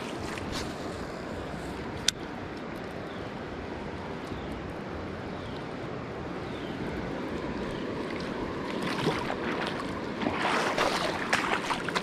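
Steady rush of river water running through rapids, with a single sharp click about two seconds in and louder, uneven noise near the end.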